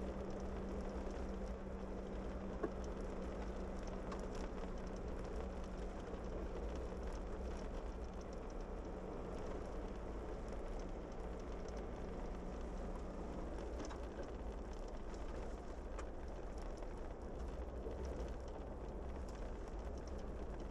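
Steady driving noise from a vehicle on a wet, slushy road: low engine and road rumble with tyre hiss. A steady hum runs under it and stops about two-thirds of the way through.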